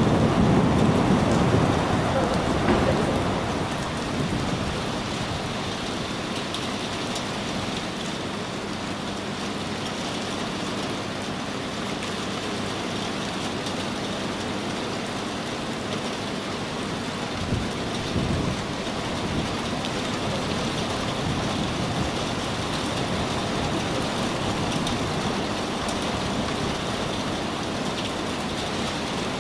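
A steady, even hiss. A low rumble at the start dies away over the first few seconds, and a brief low rumble comes about eighteen seconds in.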